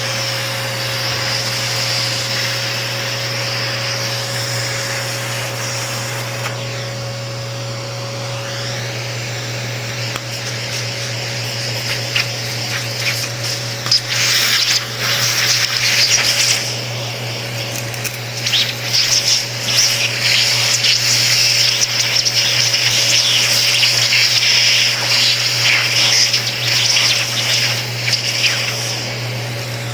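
Vacuum cleaner running steadily as it is worked over an electric fan; from about halfway, its nozzle rubs and scrapes against the fan in quick, uneven strokes.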